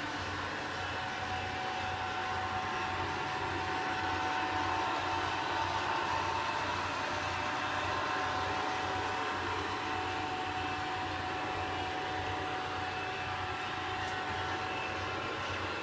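Robot vacuum cleaner running: a steady motor whir with a faint constant whine.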